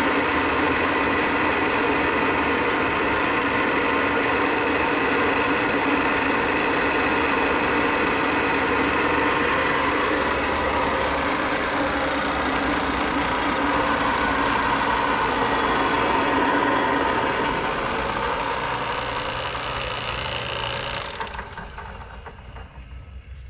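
Millport Model 2S knee mill's 2 HP three-phase motor and spindle running steadily, a hum with several steady tones. It weakens and drops off sharply near the end.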